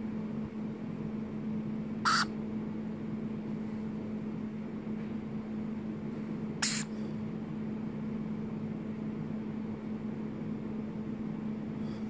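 Two brief harsh screeches from a young varied lorikeet, about four and a half seconds apart, over a steady low background hum.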